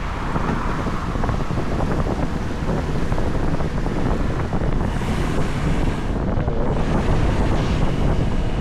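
Strong wind buffeting the microphone of a moving scooter, a steady dense rush that is heaviest in the low end.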